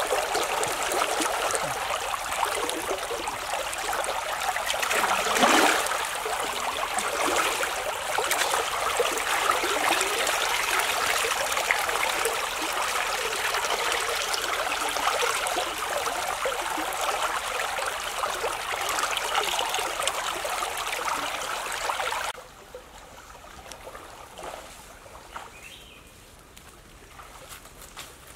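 Shallow river water splashing and sloshing around wading legs and stirring hands, with water poured out of a pot. About 22 seconds in it stops abruptly, leaving a much quieter outdoor background.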